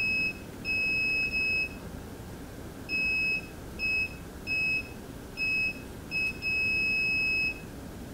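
Multimeter's audible continuity tester sounding a high, steady beep that breaks on and off about eight times, in uneven lengths, as the probes make and lose contact on the starter motor's winding terminals. The longest beep comes near the end. Each tone signals a closed circuit through the windings.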